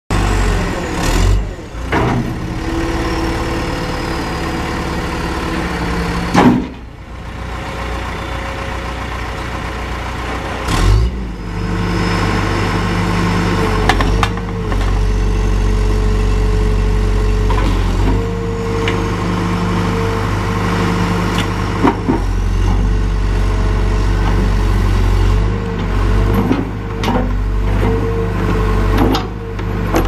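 John Deere 410G backhoe loader's four-cylinder diesel engine running, its note rising and falling as the loader bucket and backhoe arm are worked. Several loud clunks break through, the loudest about six and a half seconds in.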